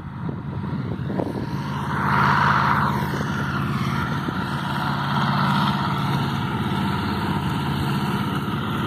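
Farm tractor engine running steadily, growing louder about two seconds in.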